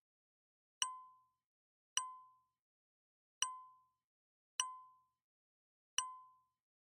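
A short ringing ping repeated five times, about one every 1.3 seconds, each struck sharply and dying away within half a second, with silence between.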